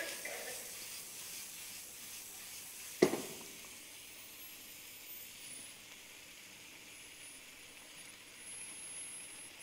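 Food sizzling in a hot wok, a steady hiss that slowly fades. About three seconds in comes a single sharp knock, the wok being set down on the hob.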